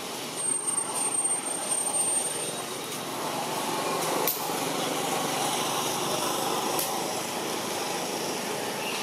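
Steady outdoor background noise without words, with a thin high whistling tone for about two seconds near the start and two sharp clicks later on.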